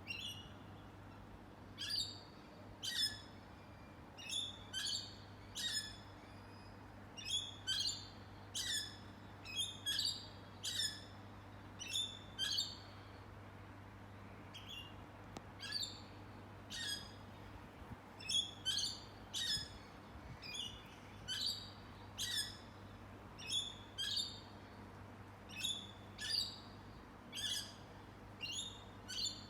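Birds calling with short, sharp chirps repeated in quick pairs and clusters, with a brief lull about halfway through. A faint steady low hum lies underneath.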